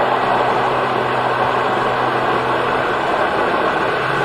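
Electric blender running steadily, pureeing thick cooked squash with broth; the thick blend keeps catching an air bubble around the blade.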